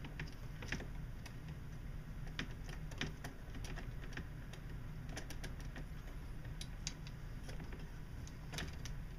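Scattered small metallic clicks and taps as hands work parts loose on a REGNER Vincent live-steam model engine, over a steady low hum.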